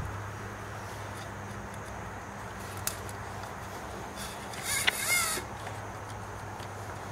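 Steel inner brake cable being handled and fed along a bicycle frame: a light click, then a brief scraping squeak about five seconds in, over a steady low hum.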